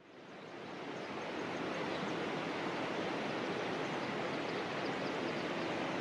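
Steady rush of flowing water, fading in over the first second.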